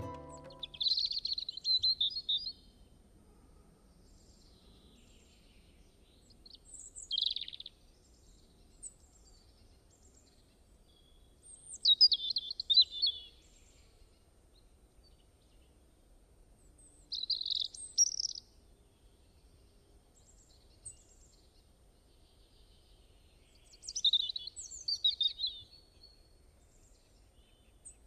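A songbird singing short, high-pitched phrases of about a second or two, repeated five times at intervals of roughly five seconds, over a faint steady background.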